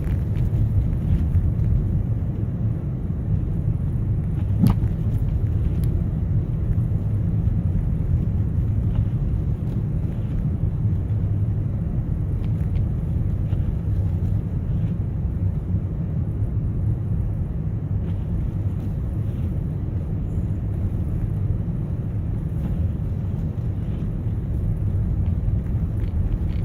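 Car driving on a snowy road, with a steady low rumble of road and engine noise. There is a single sharp click about five seconds in.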